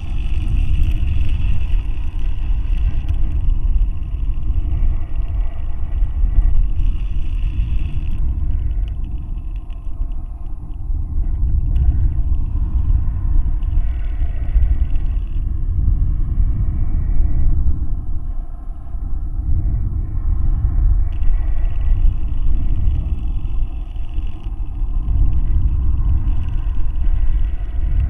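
Loud, unsteady low rumble of air buffeting the microphone of a high-altitude balloon payload's camera. It swells and fades every few seconds, with a faint steady high whine underneath.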